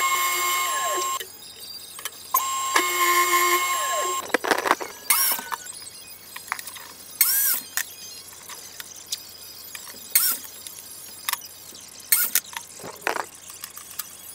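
Table saw running with a steady whine in two short stretches, each cut off abruptly, followed by a string of sharp knocks and clatters from plywood pieces being handled on a workbench.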